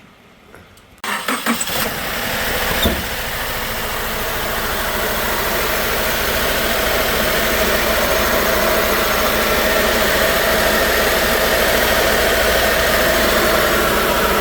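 2018 Subaru Forester's turbocharged 2.0-litre flat-four engine cranking and catching about a second in, then running steadily and growing slightly louder, with a brief knock near three seconds in. The engine is still misfiring on cylinder 4.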